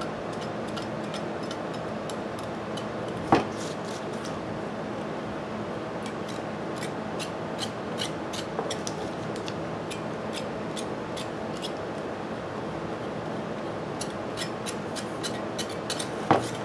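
Cheese-grater rasp shaving partly cured body filler: continuous scraping strokes with scattered small ticks, the filler at the firm, not-yet-hard stage where it can be grated. A sharp knock about three seconds in and another near the end.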